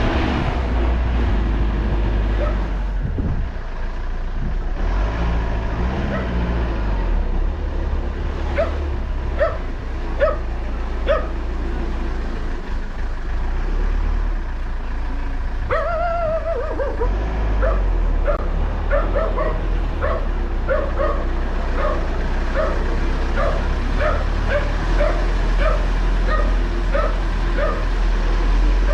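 A dog yipping and barking in short repeated calls over a steady low vehicle rumble. About halfway through there is one longer whining call that bends in pitch, followed by a quick string of yips.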